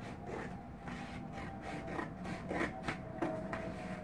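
Scissors cutting through a sheet of cardboard, one snip about every half second.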